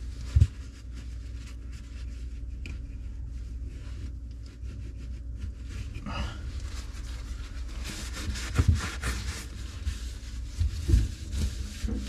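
Scattered knocks, clicks and rubbing from parts and tools being handled, with one sharp knock about half a second in and a busier run of clicks near the end, over a steady low hum.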